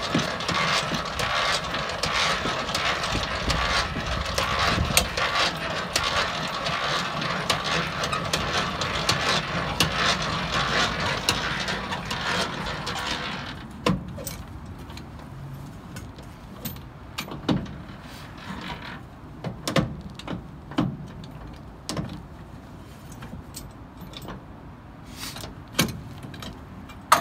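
Hand crank turning the gearbox of a truck's dolly legs to lower them: a dense mechanical clatter of gears and clicks for about the first half. It then gives way to slower, separate clicks and knocks.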